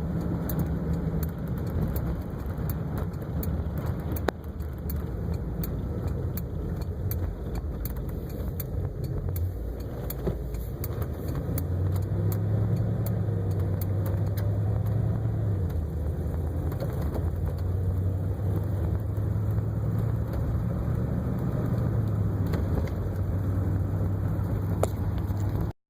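1958 Cadillac V8 engine running steadily, its low hum growing louder about twelve seconds in.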